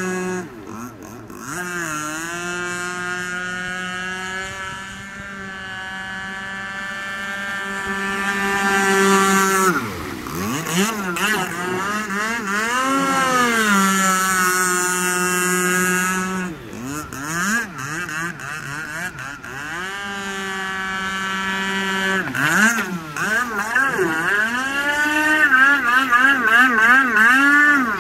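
Radio-controlled speedboat's motor running flat out, holding a steady pitch for long stretches, dipping and climbing again as the throttle is eased and reopened about halfway through, and wavering quickly up and down in the last few seconds.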